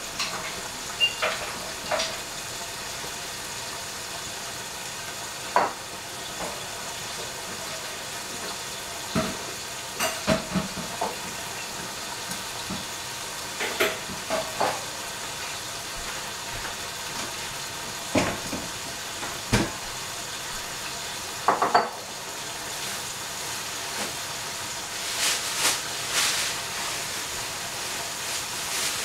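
Green beans cooking in a covered stainless steel pot over a gas flame: a steady sizzle and hiss of steam, broken by scattered short clicks and knocks. Near the end the hiss grows a little louder.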